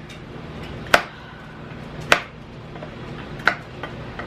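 Three sharp plastic clicks of Lego bricks being handled and fitted together, about a second apart, with a few fainter ticks between.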